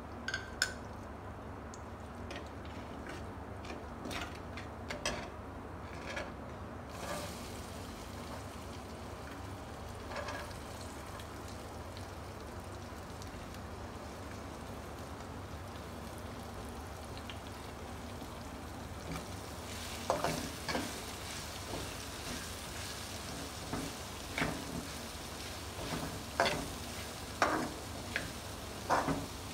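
Shredded vegetables stir-frying in oil in a wok: a steady sizzle, with a spatula scraping and knocking against the pan, scattered at first and coming thick and fast in the last third.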